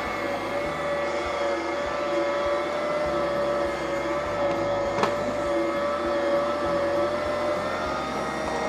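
Bosch stand mixer running steadily as it kneads bread dough, its motor giving an even hum. A brief click about five seconds in.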